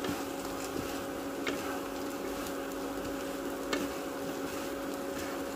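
Fried anchovies and garlic being stirred and tossed in a nonstick frying pan with a wooden spatula and chopsticks over very low heat: a light sizzle and scraping with a few soft taps, over a steady hum.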